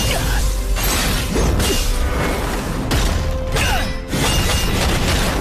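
Layered animated-battle sound effects: a dense, continuous wash of crashing and sweeping effects over a steady low rumble, with background score music beneath.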